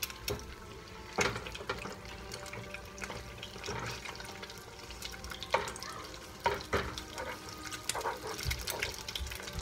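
Eggs sizzling in a frying pan, with a plastic spatula scraping and knocking against the pan several times.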